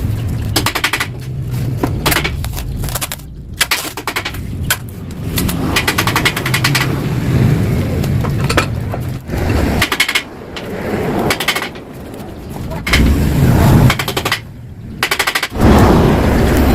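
Yamaha RX-King's single-cylinder two-stroke engine revved in repeated bursts with short lulls, its hollowed-out exhaust giving a rapid crackling, popping rattle. This is the crisp, snarling 'garing ngorok' tone the exhaust was modified for.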